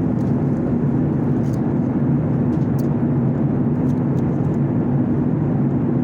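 Jet airliner running, a steady low rumble with a faint even hum.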